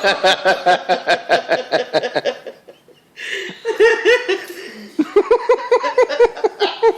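People laughing hard in two long runs of quick 'ha-ha' pulses, with a short break about three seconds in.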